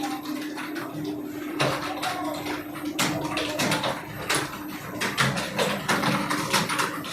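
Several computer keyboards typed on at once during a timed typing test: a fast, irregular clatter of key clicks, some strokes louder than others, over a steady low hum.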